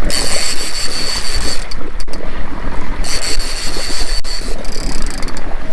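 Wind buffeting the microphone and water rushing past the hull, over the steady low hum of a charter fishing boat's engine while trolling.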